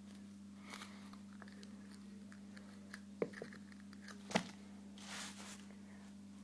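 Foil-paper wrapper of a roll of Mentos mints crinkling and tearing as it is picked at and bitten open, with two sharp crackles about three and four seconds in and a short rustle after them.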